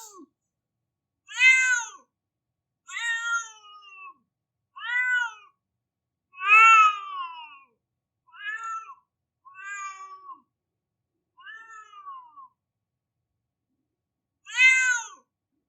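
A domestic cat meowing over and over in drawn-out crying calls, about eight in all, each dropping in pitch at its end, with short silent gaps between them and a longer pause before the last.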